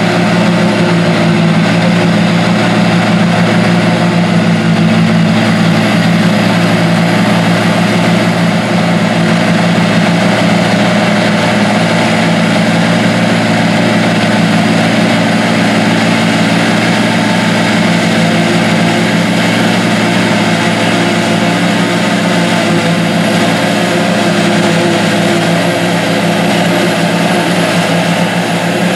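John Deere 8100 tractor's engine working under load, driving a pull-type John Deere 3970 forage harvester that chops standing corn and blows the silage into a wagon. A loud, steady machinery drone that holds constant throughout.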